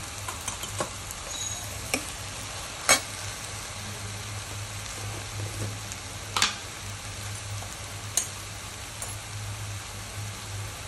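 Chopped okra frying in oil in a kadhai, a steady sizzle, while a steel spoon stirs it and clicks sharply against the pan several times, loudest about three seconds in.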